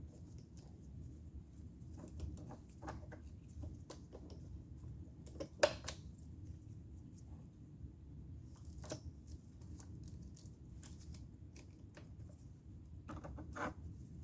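Small clicks and rattles of a chainsaw's guide bar and chain being handled and fitted back onto an electric chainsaw, with a sharper click a little under six seconds in and another near the end.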